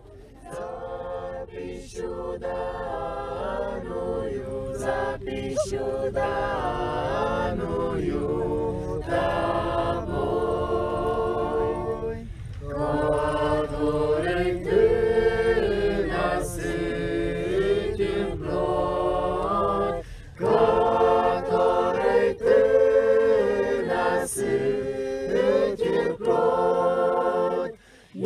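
A choir singing a cappella, several voices in harmony, in long phrases with brief pauses between them, over a low steady rumble.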